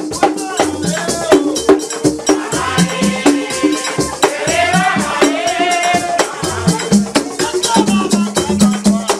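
Background music with a fast, busy percussion beat over a pulsing bass, and a melody line that glides up and down through the middle.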